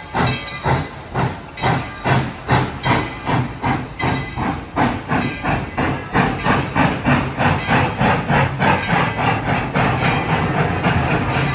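Steam locomotive chuffing as it pulls a train, the exhaust beats quickening from about two or three a second to about five a second, with steam hissing between them.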